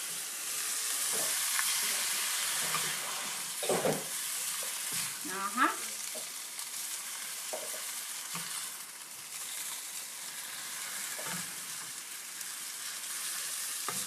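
Soaked rice noodles, chicken and egg sizzling steadily in hot oil in a pan on high heat, with a spatula scraping and knocking against the pan now and then as they are stirred.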